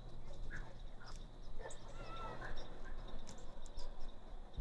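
Woodland ambience: scattered short bird chirps and a couple of brief whistled notes, over a faint steady high tone.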